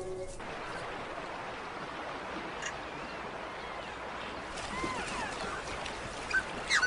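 A held soundtrack chord cuts off just after the start, leaving a steady rush like flowing stream water. A few faint bird chirps come in the second half.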